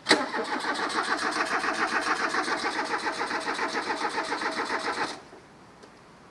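A 1980s Audi 100's starter cranking the engine for about five seconds in a fast, even rhythm, then stopping abruptly without the engine catching. This is a start attempt with a failing fuel pump, after the fuel tank has been pressurised to push fuel through to the engine.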